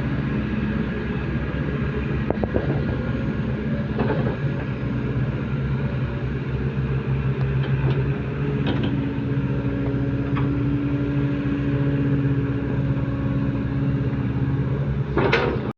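Diesel engine of a tracked earthmoving machine running steadily under load, with a few scattered clanks. A short loud burst comes near the end.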